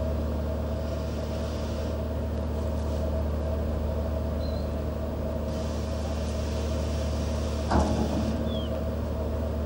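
Steady drone of a boat's engine, with a single knock about eight seconds in.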